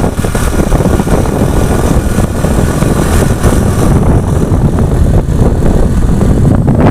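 Motor vehicle engine running steadily, with a loud, continuous rumble of wind on the microphone.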